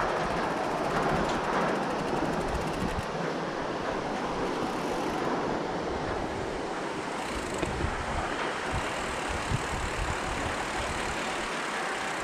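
Mountain bike riding along a trail: a steady rush of tyre and wind noise on the microphone, with a few sharp knocks and rattles from the bike over bumps.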